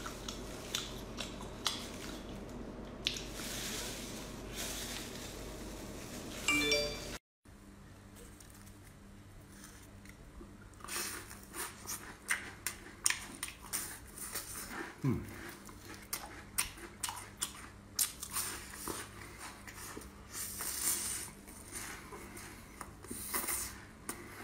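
Close-up eating sounds: chewing and biting soft braised meat, then, after a short break, biting and chewing deep-fried rolls with many sharp crunches.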